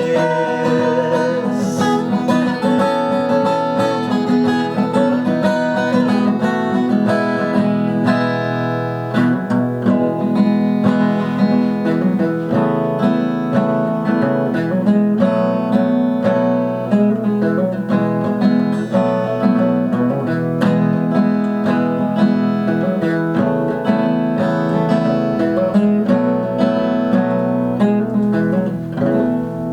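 Acoustic guitar playing an instrumental passage of a song, picked and strummed without pause and with no singing.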